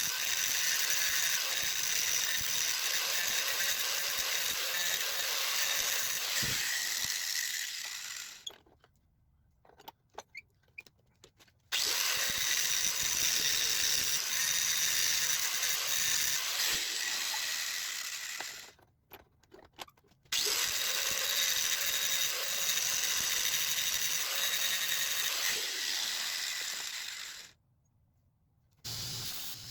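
Angle grinder running steadily against the steel of a forged railroad-spike tomahawk head, grinding away pinch marks, in three long runs of several seconds each with short breaks between them.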